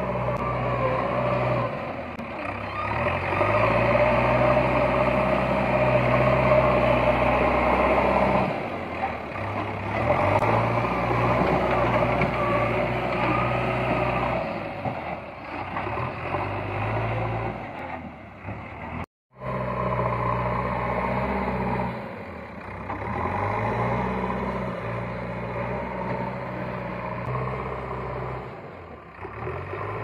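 JCB 3DX backhoe loader's diesel engine running under load while it digs and dumps with its front bucket, the revs rising and falling every few seconds. The sound drops out completely for a moment about two-thirds of the way through.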